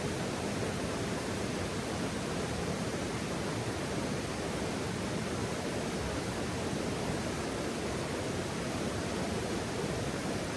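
Steady, even rushing noise, strongest in the low-middle range, with no distinct crackles or pops standing out.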